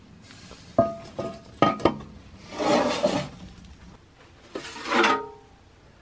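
Cast-iron pans knocking together: a cast-iron lid clanks down onto a cast-iron skillet four times in quick succession, each knock ringing briefly, then scrapes across the rim twice, the second scrape ringing.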